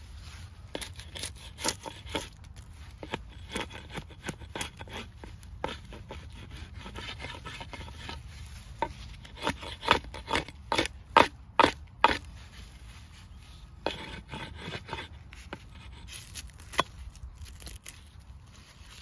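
Small hatchet striking and scraping a dry branch, splitting it and stripping off its bark: a string of sharp woody knocks with scraping between, loudest and quickest about halfway through.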